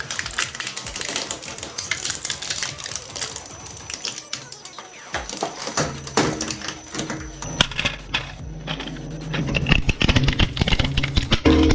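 Shredding machine chewing up a toy car, a rapid run of crackling and snapping as the blades break it apart. A low steady hum joins about seven seconds in.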